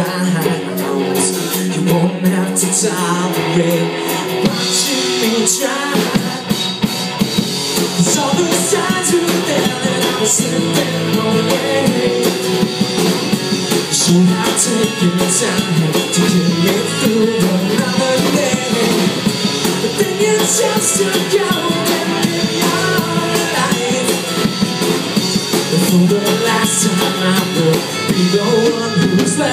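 Live rock band playing a song: electric and acoustic guitars with a drum kit and a singing voice.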